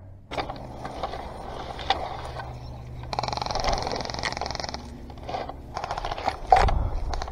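Shrub branches rustling and scraping against a player pushing through bushes, with scattered small clicks and snaps.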